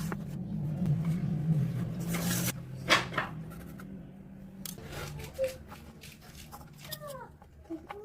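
A low motor hum that stops about two and a half seconds in, followed by scattered knocks and clicks.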